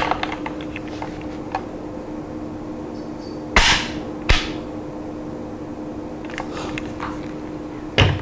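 Handling of a wooden-stocked .30-06 bolt-action rifle: light clicks and rattles of metal and wood, two sharp clacks about three and a half and four and a half seconds in as it is shouldered, and a loud knock near the end as it is laid on the table.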